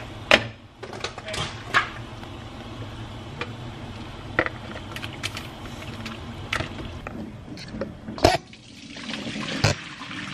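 Water boiling in a pan, with several sharp clinks of cookware. Near the end hot water rushes out as the pan is tipped and poured into a mesh strainer in the sink.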